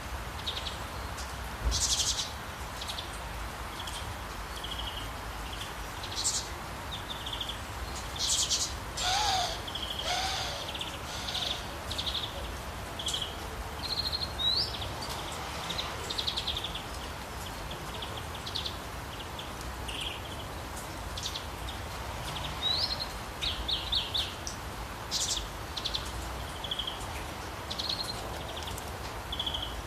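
Several songbirds chirping and calling in short high notes throughout, with one lower call about nine seconds in, over a steady hiss of running water.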